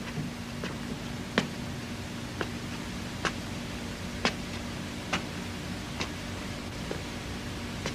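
Slow, careful footsteps on a hard floor, about one sharp step a second and uneven in strength, over a faint steady hum.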